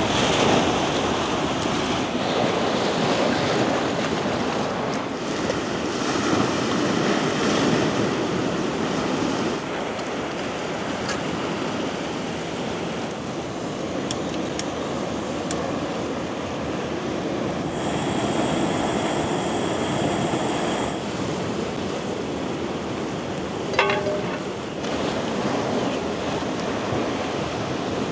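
Caspian Sea waves washing onto the shore in swelling surges, with wind on the microphone. A brief pitched sound stands out near the end.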